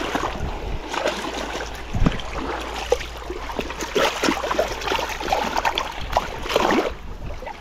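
Shallow water splashing and sloshing around a hand holding a rainbow trout as it is released, in short, irregular splashes.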